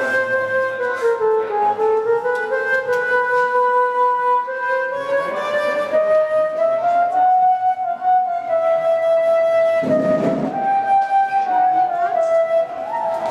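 Theremin bollard sounding one continuous electronic tone whose pitch glides smoothly with the player's hand movements. It sinks over the first couple of seconds, then slowly rises and levels off.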